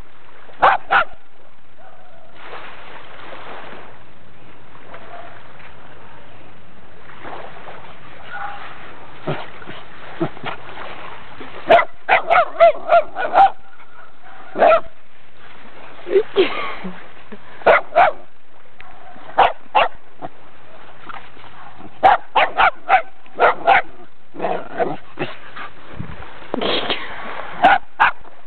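Small Brazilian Terrier (fox paulistinha) barking and yipping at a crab it is trying to catch. The barks are short and sharp and come in quick clusters: a couple about a second in, then a long gap, then repeated bursts through the second half.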